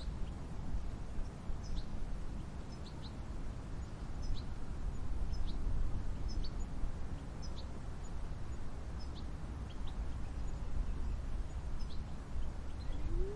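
Small birds giving short, high chirps roughly once a second over a steady low rumbling background noise.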